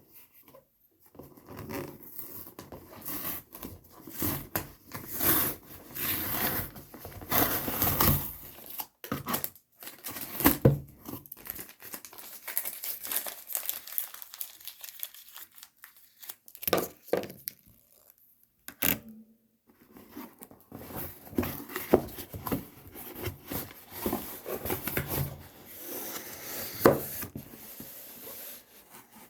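Packaging of a smartphone box being torn open and crinkled by hand: irregular rustling and ripping with sharp crackles, pausing briefly a few times.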